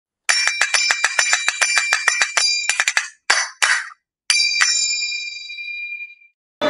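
Finger cymbals (zills) struck in a fast run of clicking, ringing hits, about seven a second for nearly three seconds. Two shorter hits follow, then after a pause two strikes are left to ring out and fade over about two seconds.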